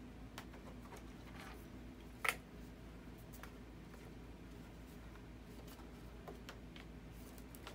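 Faint clicks and rustles of hands handling the model's wiring and small plastic connectors, with one sharper click about two seconds in, over a steady low hum.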